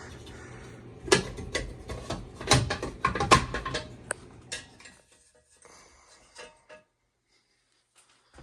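Hands working on the heat pump's electrical compartment: a string of sharp metallic clicks and clanks from tools and parts being handled, over a low hum that stops about five seconds in. After that only a few faint ticks remain.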